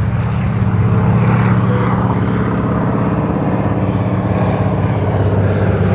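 A steady, low engine drone with a deep hum that swells slightly and holds through.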